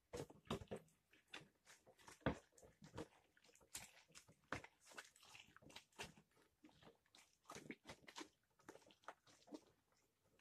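Orange halves pressed and twisted by hand on a plastic citrus reamer: faint, irregular wet squelching and scraping as the juice is squeezed out.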